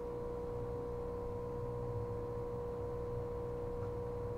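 Electric automatic airless-pump primer running with a slight, steady hum, a constant mid-pitched tone over a low rumble, as it draws up the floor of an airless cream pump held in its rubber shoe to prime it.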